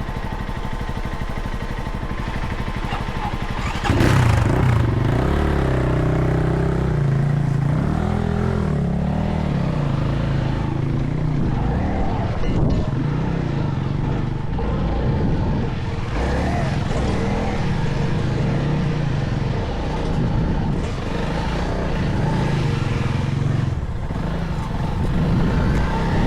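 Motorcycle engine running steadily, then louder about four seconds in as it pulls away, its note rising and falling with the throttle as it is ridden.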